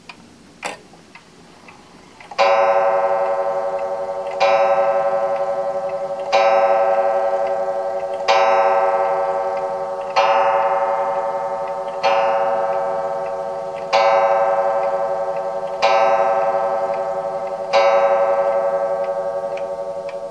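Franz Hermle & Sons two-train pendulum wall clock striking nine o'clock on its coil gong: nine slow strikes about two seconds apart, each ringing on and fading. The movement ticks faintly underneath, and there is a sharp click about a second in.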